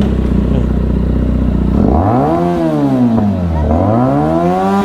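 Benelli 300 motorcycle's parallel-twin engine idling steadily, then revved up and let fall back twice in a row.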